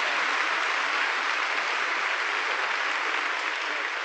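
Audience applauding, a dense steady applause that eases slightly near the end.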